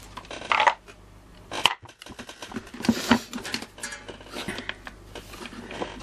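Plastic vacuum-cleaner housing parts knocking and clicking together as the upper housing is handled and seated on the motor base: a string of short, irregular knocks.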